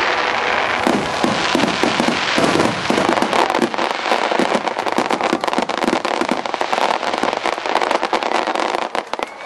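A barrage of aerial firework shells bursting in quick succession: a dense, continuous crackle of many overlapping reports, thinning out near the end.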